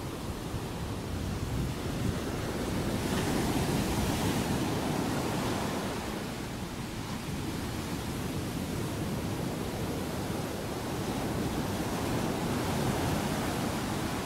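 Pacific surf breaking on a sandy beach: a steady wash of waves that swells twice, a few seconds in and again near the end.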